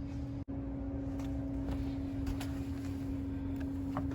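A steady low hum with a rumble underneath and a few faint clicks, broken by a brief dropout about half a second in.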